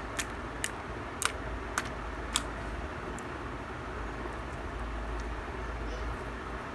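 Homemade borax-activated slime being squeezed and stretched by hand, giving five sharp clicking pops about half a second apart in the first two and a half seconds, over a steady low background hum.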